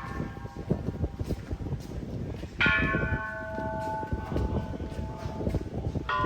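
A metal bell struck twice, about three and a half seconds apart, each strike ringing on and slowly fading, over the fading ring of an earlier strike; a steady low clatter of knocks runs underneath.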